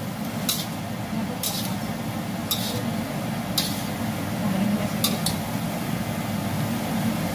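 Metal spatula scraping and clanking against a stainless steel wok during stir-frying, about once a second, with a quick double clank at about five seconds before it stops. A steady low hum runs underneath.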